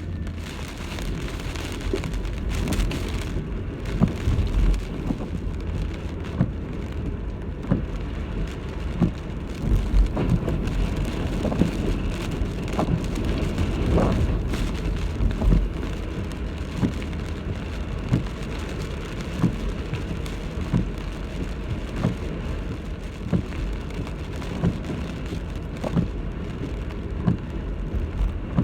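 Typhoon rain beating on a surface over a steady low rumble of storm wind, with many scattered sharp hits of heavy drops.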